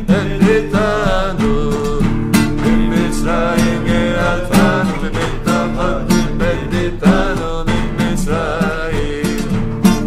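A man singing a song to his own strummed acoustic guitar.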